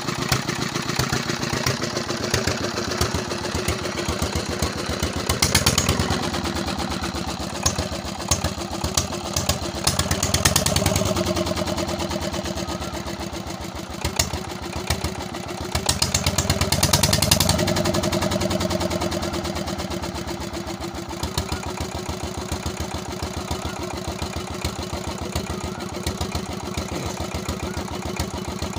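Peter 16 HP diesel engine running on test with a regular, rapid exhaust beat. Its speed rises and falls back several times, about five, ten and sixteen seconds in.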